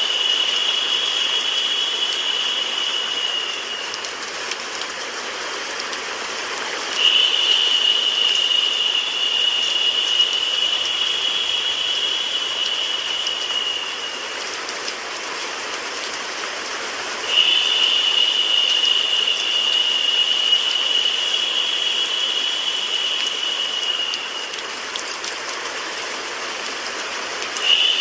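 Steady rain and white-noise hiss. A brighter, higher hiss layered on top comes in for about seven seconds, drops out for about three, and comes back, repeating in an even cycle, so the overall loudness swells and dips.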